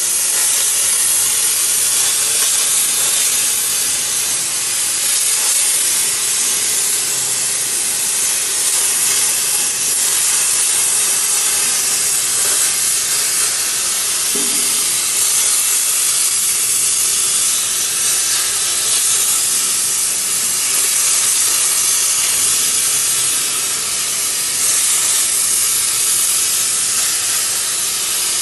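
A 105 A Hypertherm plasma torch on a CNC plasma table cutting metal plate: the arc and gas jet give a loud, steady, high hiss.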